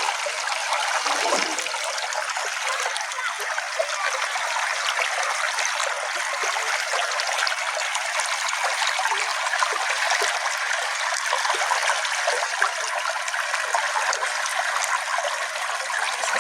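Small brook flowing steadily, its water trickling and babbling.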